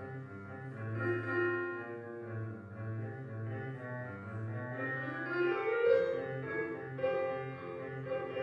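Grand piano playing: a steady pulsing bass line in the low register under a melody, with a rising run of notes about five seconds in.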